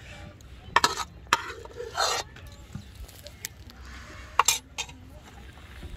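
Steel serving ladle scraping and clinking against a metal wok as thick curry is scooped out and served, a few short scrapes about a second apart and one more near the end.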